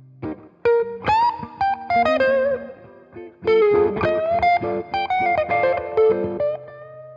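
1980 Greco EG-500 Les Paul-style electric guitar with Maxon humbucking pickups, played through a Headstrong Royal Reverb amp: a single-note lead phrase with string bends and vibrato, ending on a held note.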